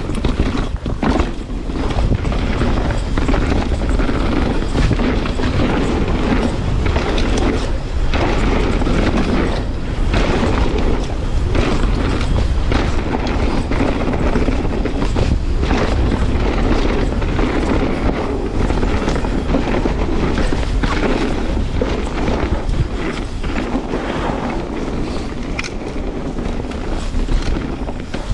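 Canyon Spectral 29 mountain bike riding fast down a dirt trail: wind buffeting the mounted camera's microphone with a constant low rumble, and tyres and frame rattling over rough ground with frequent short knocks.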